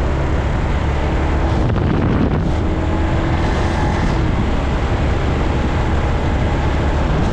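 Suzuki GZ250's single-cylinder four-stroke engine running steadily under way, newly fitted with an aftermarket carburettor, with wind rushing over the microphone.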